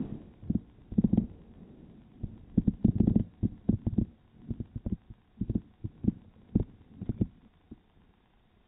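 Persian cat licking itself close to the microphone: a run of soft, low, wet licking thumps, irregular and a few a second, that die away near the end.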